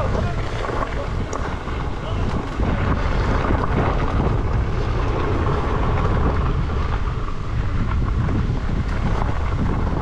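Steady wind rumble on the microphone mixed with tyre noise on a gravel track, from riding an electric unicycle.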